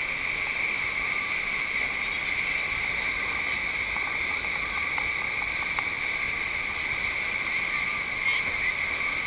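Steady rush of water streaming over a sheet-wave ride (a FlowRider-type standing wave), unchanging throughout.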